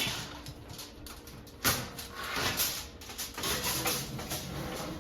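Kitchen handling noises from a covered baking pan being put into the oven: irregular rustling and scraping, with a sharp knock about a second and a half in.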